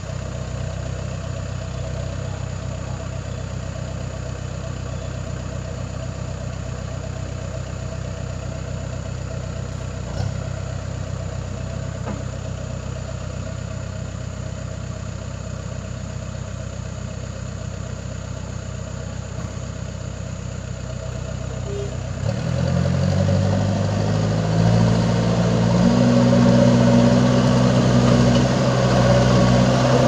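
Case backhoe loader's diesel engine running steadily at low revs, then revving up about two-thirds of the way through and holding at higher, louder revs as the machine drives through deep mud.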